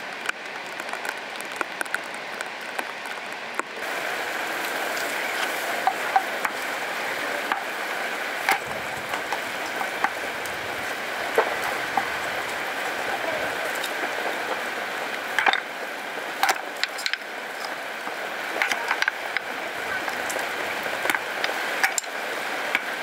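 A hatchet splitting small softwood kindling sticks on a wooden board: irregular sharp knocks and cracks as the blade bites in and sticks split off, starting a few seconds in, over a steady hiss.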